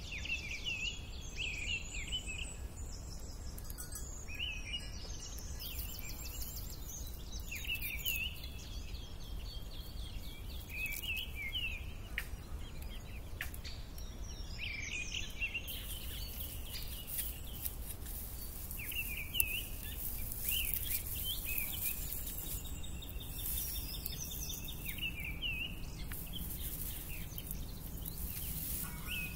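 Birds chirping and singing, with short calls repeating every second or so and a few rapid trills, over a steady low rumble of outdoor background noise.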